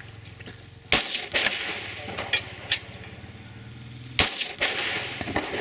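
Two rifle shots from an AR-15, about three seconds apart, each a sharp crack with a short echoing tail. Fainter sharp clicks fall between them.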